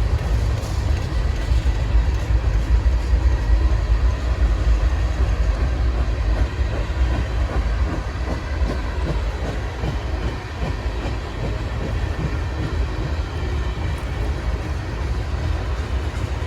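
Norfolk Southern manifest freight cars rolling slowly past in a steady low rumble, with wheels clicking over the rail joints in the middle stretch.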